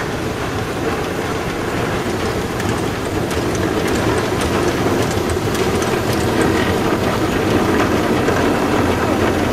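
Shay geared steam locomotive No. 11, with its three-cylinder vertical engine, working past under steam: exhaust and the clatter of its geared drive and wheels on the rail, growing louder as it draws near.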